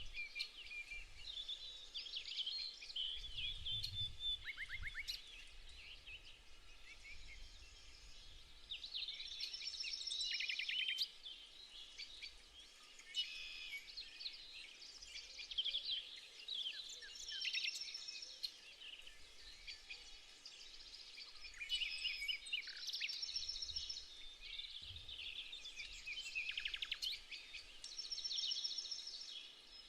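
Several songbirds singing at once: overlapping trills, chirps and short repeated song phrases. A brief low rumble sounds a few seconds in.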